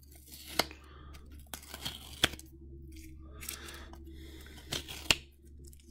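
Clear tape being peeled off a stack of rigid plastic toploader card holders, with rustling and three sharp plastic clicks.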